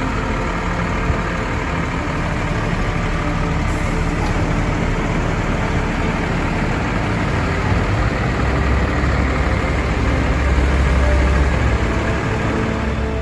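A vehicle engine runs steadily, with a low rumble that grows stronger about two-thirds of the way through.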